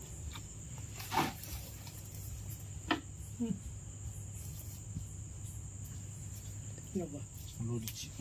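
Crickets trilling steadily in a high, even tone, with a few brief short voice sounds and a couple of sharp knocks over it.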